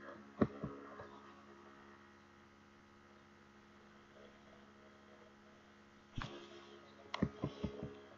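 Steady low electrical mains hum, with a few short sharp clicks about half a second in and a quick run of clicks near the end.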